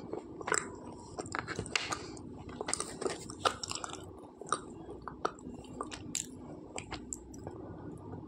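Close-up chewing of slate pencils: irregular crisp crunches and crackles in the mouth, with no steady rhythm.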